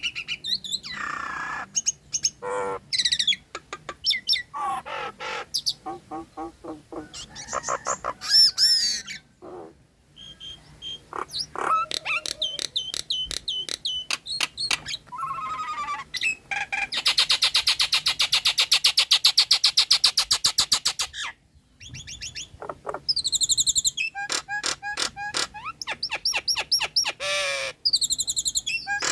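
Nias hill myna singing a varied, mimic-rich song: rapid trains of clicks and chatter mixed with gliding whistles, and a long fast rattle lasting about four seconds in the middle, broken by brief pauses.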